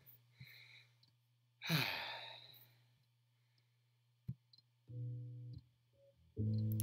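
A long breathy sigh about two seconds in, then a short click, then recorded guitar music starting about five seconds in with a few chords.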